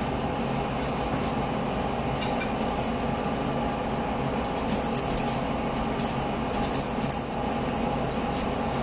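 Mukbang eating sounds: forks clicking and scraping on plates and close chewing, as scattered short clicks over a steady background hum.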